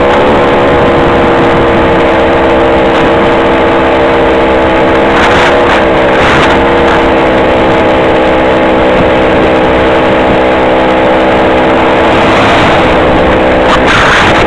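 Two-stroke chainsaw engine driving a homemade motorized bicycle, running steadily under way with small shifts in pitch. Gusts of wind on the microphone about five seconds in and again near the end.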